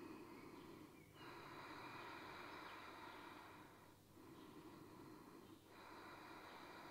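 Faint, slow, deep breathing: a few long breaths separated by short pauses, close to near silence.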